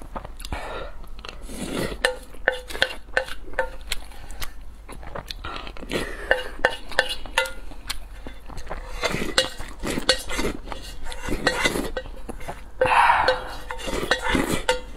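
A wooden spoon scraping and knocking against a gold-coloured metal bowl while scooping fried rice: irregular clicks, several a second, each leaving a brief ring at the same pitch. About thirteen seconds in, a louder slurp from the bowl's rim.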